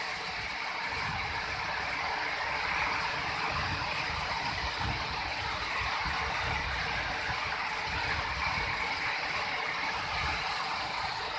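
Wind buffeting the microphone in uneven low rumbles over a steady hiss.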